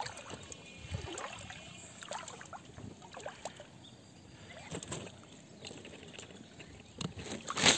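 Shallow rice-paddy water splashing and sloshing as a gill net with caught fish is pulled up and handled, with a louder sudden sound near the end.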